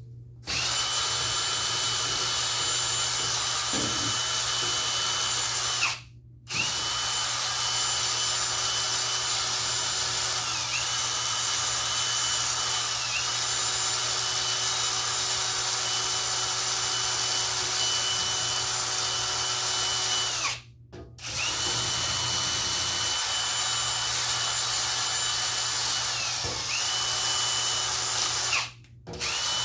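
Electric drill running steadily to scour corrosion off a battery cable terminal. The motor stops briefly three times, and its whine sags in pitch for a moment now and then as the tool bites into the crusty terminal.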